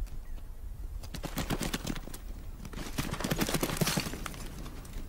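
Bharal (blue sheep) hooves clattering on rock and loose stones as the herd bolts in alarm: a rapid, irregular run of clicks and knocks that builds about a second in and thins out near the end.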